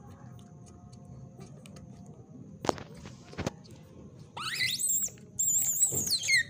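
Young otter squealing in high, wavering calls while suckling from a milk bottle: a short rising squeal about four seconds in and a longer one near the end, which drops in pitch as it ends. Two soft clicks come before the squeals.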